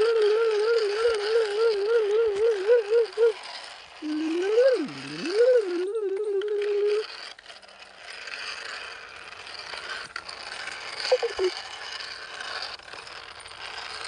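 A child's voice humming an imitation of a truck engine, a steady wavering drone for about three seconds, then a hum that swoops up and down and levels off. After that, quieter rattling of the plastic toy dump truck's wheels and body as it is dragged over dirt.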